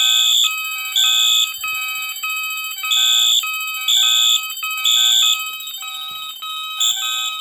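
Fire alarm horns sounding together off an alarm panel's bell circuit. The loudest is a horn set to high volume, sounding the temporal-three evacuation pattern: three half-second blasts a second apart, a pause, then three more. Under it, other devices repeat quieter, lower beeping tones.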